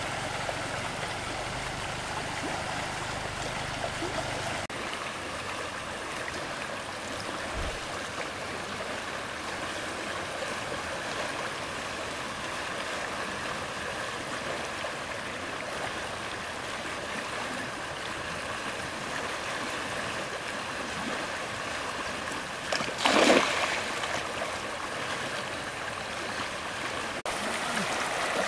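Steady rush of flowing stream water, with one short, louder burst of noise a little before the end.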